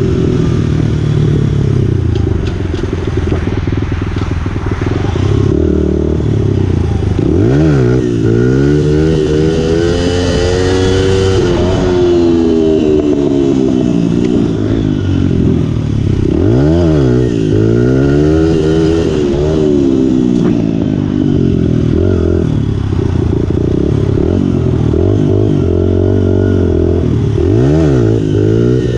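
Honda 100 dirt bike's small single-cylinder four-stroke engine being ridden, its pitch rising and falling with the throttle. Several times the revs drop sharply and climb back up.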